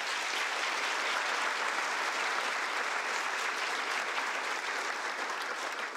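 Audience applauding, steady in level.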